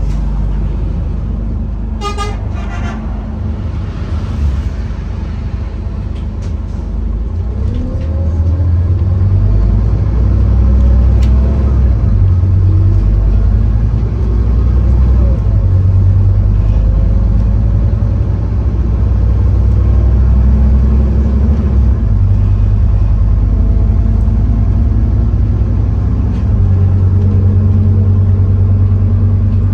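Scania N230UD OmniCity bus's five-cylinder diesel engine running under load, heard from inside the bus, getting louder about eight seconds in with rising whines as it pulls harder. A brief horn toot about two seconds in.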